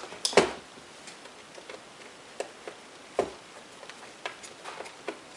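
Light, irregular clicks and taps of a screwdriver working small Phillips screws out of a laptop's screen assembly, with a couple of louder knocks about half a second and three seconds in.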